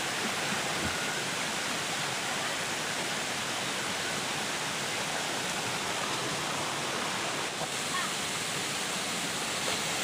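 Steady rush of a waterfall and its flowing river water.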